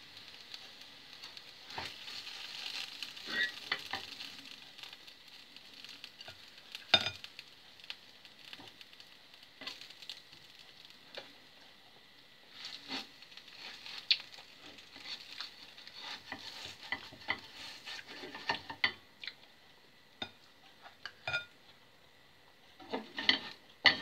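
Pancakes sizzling in a frying pan, with a spatula scraping and clicking against the pan and bowl. The sharpest clicks come about seven seconds in and near the end.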